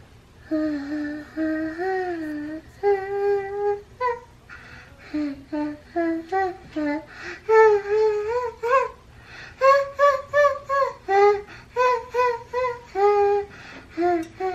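A young girl singing a wordless tune, starting with a few long held notes and then going on in short, separate notes.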